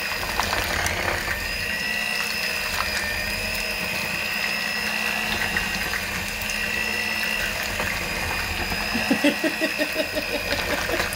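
Electric hand mixer running steadily, its beaters churning through cooked chicken breast and cream sauce in a slow cooker's crock to shred the meat. The motor gives a constant high whine.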